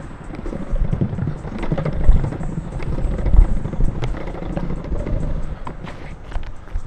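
Longboard wheels rolling over pavement, a loud uneven low rumble with scattered short clicks and knocks from the board going over the surface.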